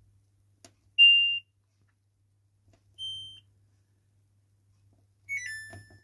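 Samsung washing machine's control panel beeping as its option buttons are pressed to choose the wash settings. A loud single beep comes about a second in and a quieter one about two seconds later, then a quick falling run of three short notes near the end.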